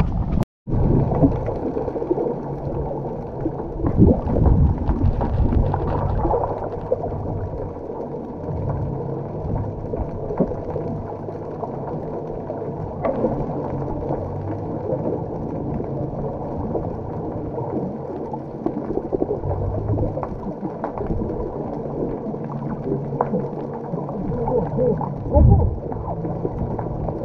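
Steady low hum and rush of a tour boat under way: engine drone mixed with water and wind noise, with a few short knocks.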